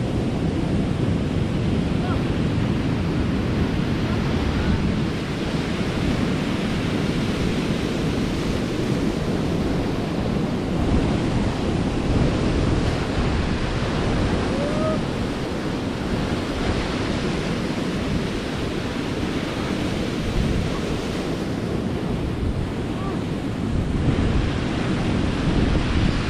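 Surf breaking and washing against a rocky shore, a steady rushing noise, with wind buffeting the microphone.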